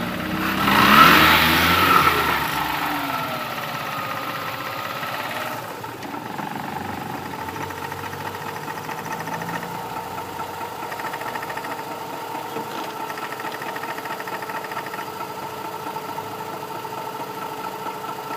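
Mazda RX-8's twin-rotor Wankel engine, with a gear engaged, rises in speed about a second in and sinks back over the next few seconds, then idles steadily. The car is being checked for a knock that comes when a gear is engaged and when the throttle is released.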